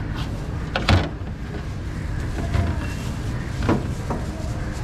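Sharp knocks and clacks of a knife and a wooden hand lemon squeezer on a steel counter, loudest about a second in and again near the end, over a steady low rumble of street traffic.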